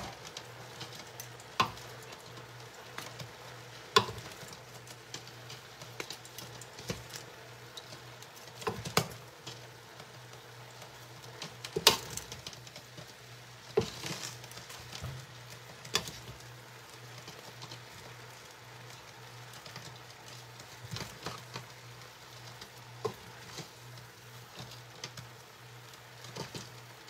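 Metal tongs tossing pancit noodles and vegetables in a large stainless-steel pot, with irregular sharp clinks of the tongs against the pot and a faint sizzle underneath. A steady low hum runs beneath it all.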